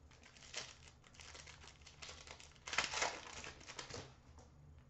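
Crinkling of a trading card pack wrapper as it is opened and handled, in a string of rustles that are loudest about three seconds in.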